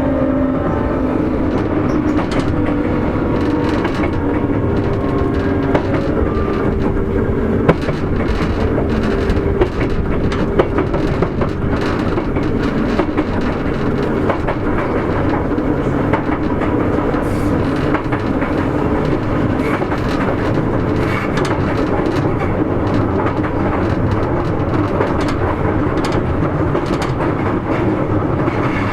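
Sotetsu 8000 series electric train running, with the Hitachi IGBT-VVVF inverter's tones fading out in the first few seconds. After that comes a steady rolling noise with a few sharp clicks from the wheels over rail joints.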